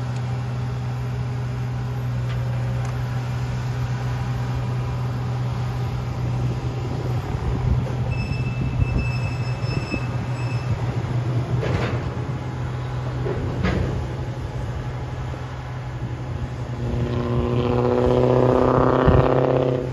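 Rail train's diesel engine running steadily while rail is pulled off during unloading, with a couple of sharp metallic knocks midway. Near the end a louder sound of several held pitches at once comes in for about three seconds.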